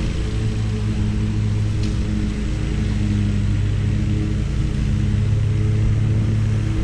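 Zero-turn lawn mower engine running steadily at mowing speed, a constant hum that grows slightly louder in the second half.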